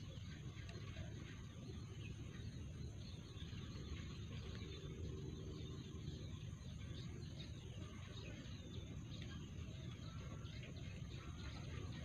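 Faint rural outdoor ambience: a steady, high insect trill under many small bird chirps, over a low rumble.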